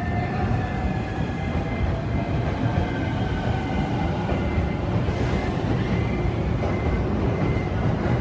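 E231 series electric train pulling out of the station as its cars pass close by: a steady rumble of wheels on the rails, with the traction motors' whine gliding in pitch as the train gathers speed.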